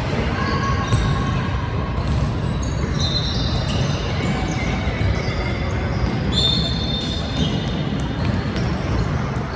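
A basketball being bounced and dribbled on a gym court, over a steady din of the hall. Short high squeaks come and go throughout.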